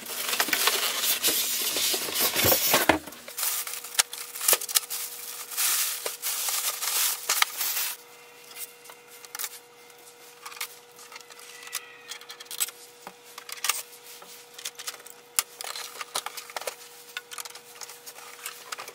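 Polystyrene foam packing and cardboard scraping and rustling as a printer is pulled from its box. After a cut, scattered plastic clicks and short rustles of the printer being handled, growing sparse over a faint steady hum.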